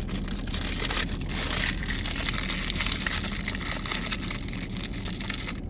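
Foil blind-box wrapper of a Sunny Angel figure crinkling and crackling steadily as it is handled and opened by hand, close to the microphone.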